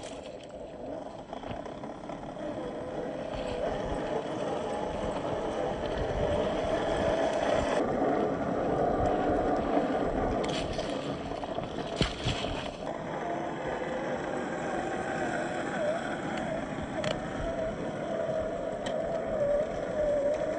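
Electric motor and gear whine of a 1/10-scale RC crawler with a 27-turn brushed motor, crawling over rocky dirt, its pitch wavering as the throttle changes. A few sharp clicks and knocks of tyres and chassis on stones.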